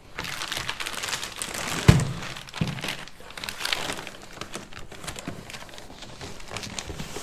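Pink plastic packing material crinkling and rustling as it is pulled out of a cardboard box. A dull thump comes about two seconds in, with a softer knock just after.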